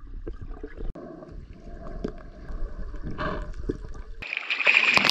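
Muffled underwater sound of a freedive in a cenote: low rumble and gurgling water movement with scattered faint clicks. About four seconds in it changes suddenly to louder, brighter water splashing.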